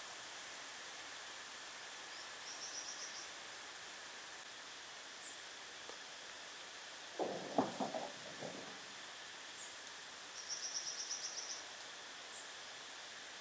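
Forest ambience: a steady insect hiss, with a bird's rapid high trill heard twice, the second one longer. About seven seconds in comes a short burst of lower knocking notes.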